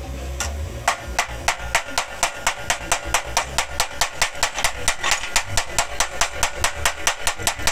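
Chipping hammer rapidly striking a freshly laid stick-electrode weld bead on steel plate, about five sharp metallic taps a second, to knock off the slag.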